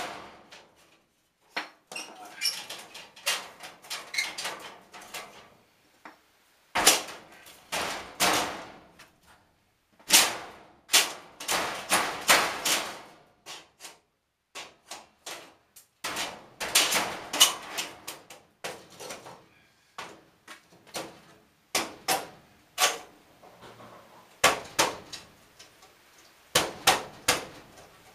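Hammer blows and metal clanging on an old furnace being knocked apart for removal: irregular clusters of sharp strikes, some ringing briefly, with short pauses between them.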